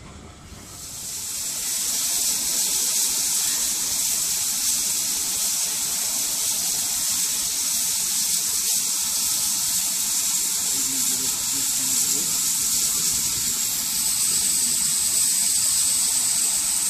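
Steam locomotive blowing off steam: a loud, steady hiss that starts about a second in and grows stronger near the end.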